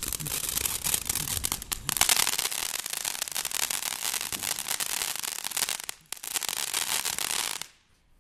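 Ground fountain firework spraying sparks with a steady hissing crackle, which cuts off abruptly near the end.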